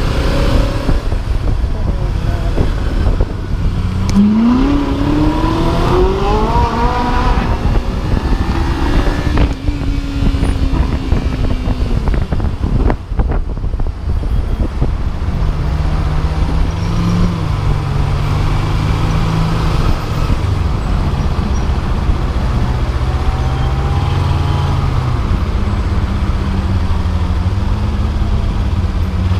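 Kawasaki Ninja 300's parallel-twin engine running under the rider in slow city traffic, its pitch rising as it revs up about four seconds in, then settling to low, unsteady revs, over a constant rumble of wind on the microphone.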